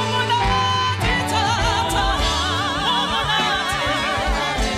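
Several voices singing together with strong vibrato, over music with a low bass.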